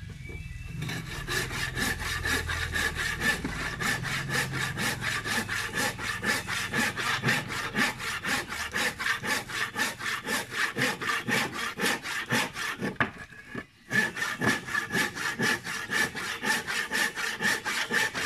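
Handsaw cutting through a hardwood board with fast, even back-and-forth strokes. It stops for a moment about three-quarters of the way in, then carries on.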